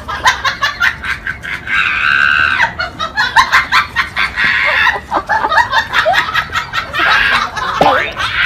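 A person laughing hard in rapid, high-pitched bursts.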